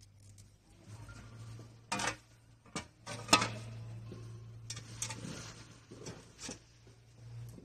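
A plastic wheel cover is handled and fitted against a pallet truck's metal frame, making a few irregular knocks and clatters. The loudest is a sharp knock about three seconds in. A steady low hum runs underneath.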